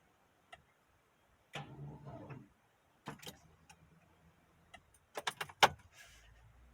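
Quiet handling noises: scattered clicks and light knocks, with a quick run of sharp clicks about five seconds in.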